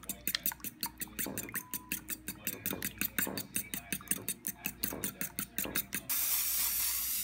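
A metal fork beating eggs in a ceramic bowl, clicking against the bowl about six times a second. About six seconds in, this gives way to a steady hiss of cooking spray on a frying pan.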